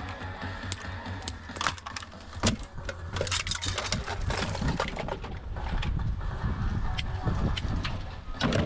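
Scattered knocks and clinks of scrap pieces being handled and sorted, over a steady low hum.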